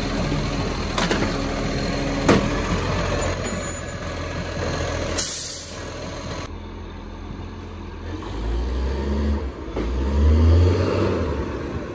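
Side-loader garbage truck working: the hydraulic arm sets a wheelie bin down and retracts with a couple of sharp clunks over the running engine, and a short air hiss about five seconds in. Then a garbage truck drives up, its diesel engine rumble growing louder and loudest near the end.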